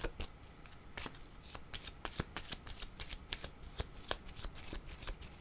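A deck of tarot cards being shuffled by hand: a steady run of light card slaps and flicks, several a second.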